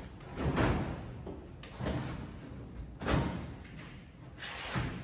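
Sheet-steel outer wheel well being shifted and pushed into place against a car's rear body, with about four dull knocks and scrapes of metal on metal.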